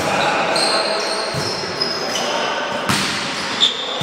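Volleyball rally in a large gym hall: sharp hand-on-ball hits at the start, about a second and a half in and about three seconds in, with short high squeaks of sports shoes on the court floor and players' voices, all echoing in the hall.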